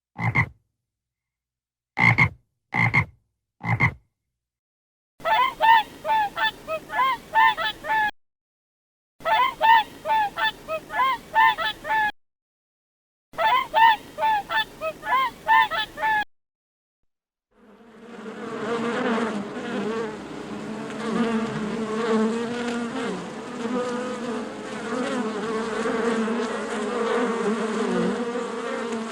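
Frogs croaking: a few short single calls, then three bouts of rapid repeated croaks with short silences between them. About eighteen seconds in, a steady insect buzz takes over.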